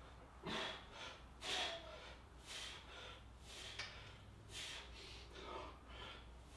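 A man breathing hard through a set of pull-ups, a sharp exhale about once a second.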